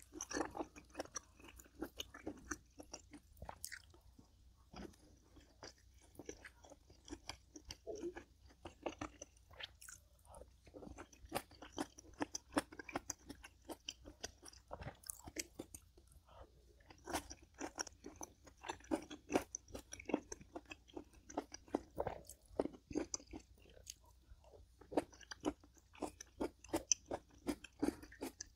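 A person chewing and crunching food, with irregular crisp crunches throughout.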